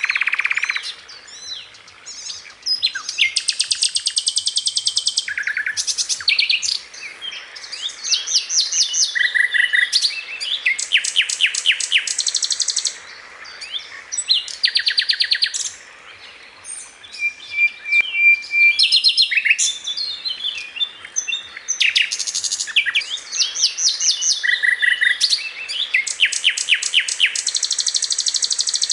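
Grey-headed canary-flycatcher (sikatan londo) singing: a fast, varied string of high rapid trills and chattering phrases, with brief pauses between bouts.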